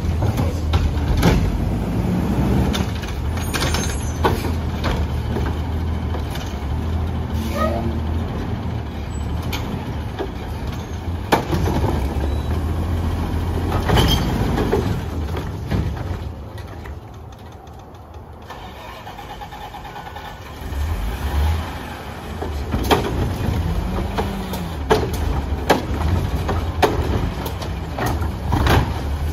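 Garbage truck's engine running with a low rumble, broken by repeated clanks and bangs. It quietens for a few seconds past the middle, then picks up again.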